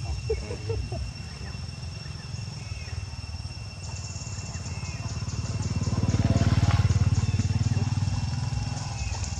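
A motorcycle engine passing by, getting louder to a peak about two-thirds of the way in and then fading.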